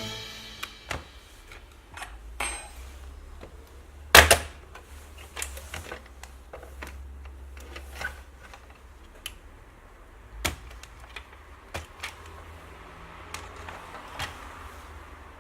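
Scattered sharp clicks and taps from handling a laptop's plastic and metal parts, irregular and a few seconds apart, the loudest about four seconds in.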